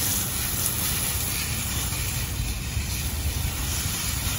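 Garden hose spray watering a raised vegetable bed: a steady hiss of fine water falling on soil and leaves, with wind rumbling on the microphone.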